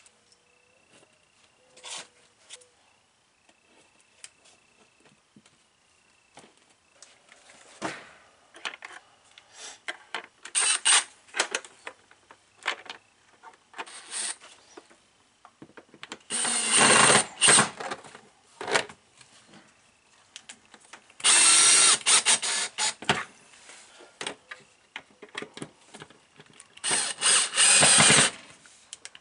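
Cordless drill run in several short bursts, the longest about two seconds, mostly in the second half. Small clicks and handling noises come between the bursts.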